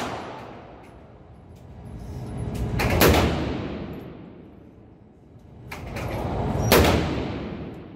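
AR pistol chambered in 7.62×39mm firing two single shots, about three seconds in and again near the end, each with a long echo off the indoor range.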